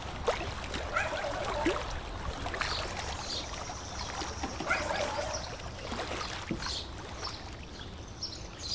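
Water trickling and splashing off a paddle as a small boat is paddled along, with a few short bird chirps.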